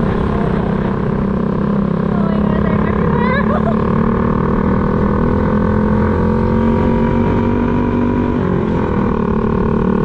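Motor scooter engine running steadily as it rides through traffic, with a low rumble of road and wind noise; its pitch dips a little near the end as it slows.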